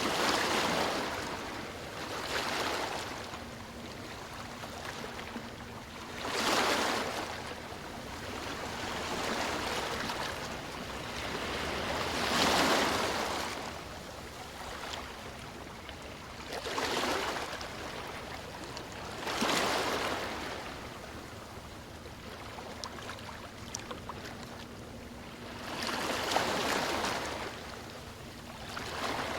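Sea waves breaking on a beach: a rush of surf swells and fades again about every two to six seconds, at uneven spacing.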